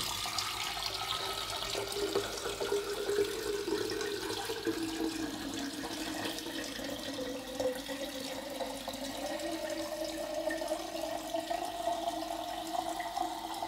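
Cold water running from a kitchen tap through the mesh sieve lid into a glass sprouting jar standing in a stainless steel sink. It is a steady splashing with a tone that rises slowly over the second half as the jar fills.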